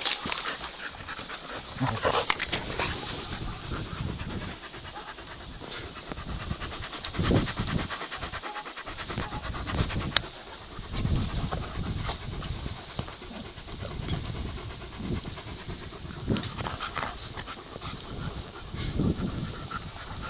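A dog panting, in uneven bursts of breath.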